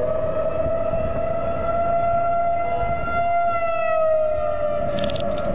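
Outdoor tornado warning siren sounding one long held wail that sags slightly in pitch in the second half, over a low rumbling noise, with a few sharp crackles near the end.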